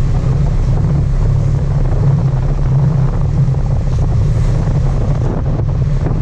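Sport fishing boat's engine running steadily, with wind buffeting the microphone.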